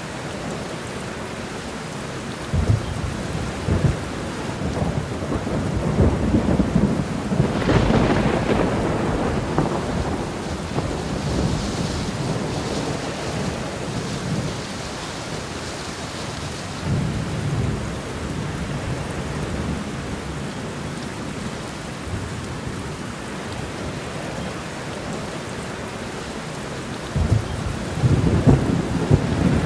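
Thunderstorm: steady heavy rain with several rolls of thunder. The longest and loudest rumble builds and fades over about four seconds a third of the way in, and another strong one comes near the end.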